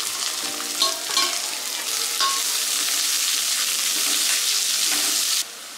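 Chopped onions sizzling in hot mustard oil in a metal kadai, with a metal spatula scraping and clicking against the pan as they are stirred. The sizzle thickens after about a second and cuts off suddenly near the end.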